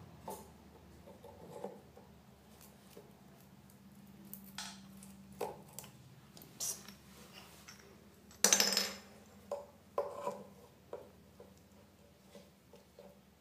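Plastic electrical plug knocking and scraping against a metal tap and granite countertop as its earth pin is worked against the fitting: scattered clicks and clinks, with one louder, longer clatter about eight and a half seconds in.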